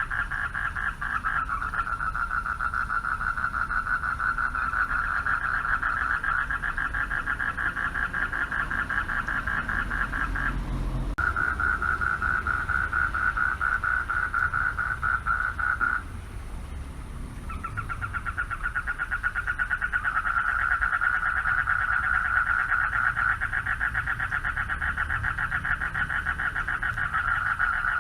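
Male frogs calling for mates at a pond: a dense chorus of fast, pulsed trills. It pauses briefly about ten seconds in and again, for longer, about sixteen seconds in, then picks back up.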